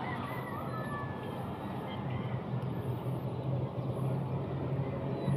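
A motor vehicle engine hums steadily, growing a little louder in the second half, over a steady outdoor noise background.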